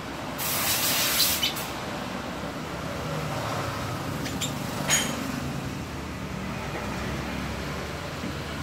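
Engine idling steadily, with a brief rush of noise about half a second in and a sharp click about five seconds in.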